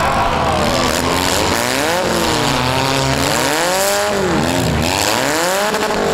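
Several four-cylinder demolition derby cars' engines revving and easing off at once, their pitches rising and falling in overlapping sweeps about once a second.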